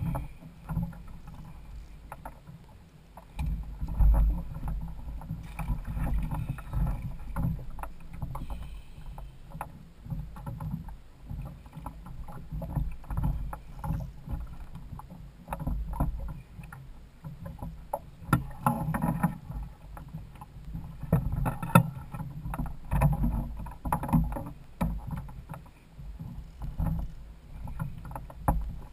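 Water slapping and sloshing against a plastic kayak hull, heard as an uneven low rumble with scattered irregular knocks and clicks.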